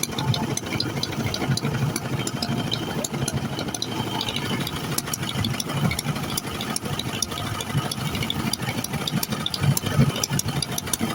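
Motorboat engine running steadily at low revs, with a constant rattle of small clicks over it.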